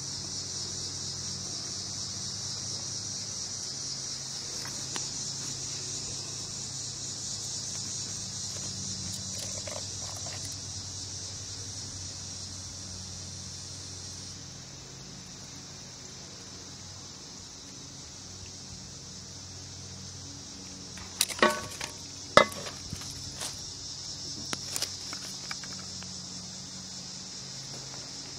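Steady high, shrill chorus of insects chirping in the grass. A little over 21 s in, a few sharp clicks and knocks stand out as the loudest sounds.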